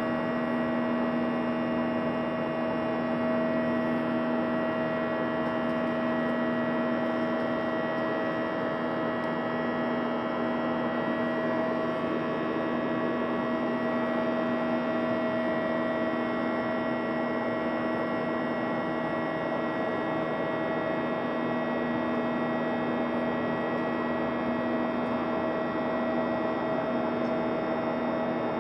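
Cabin noise inside a Boeing 737-900 airliner: a steady drone from its CFM56 turbofan engines and the airflow, several steady tones layered over an even rushing noise.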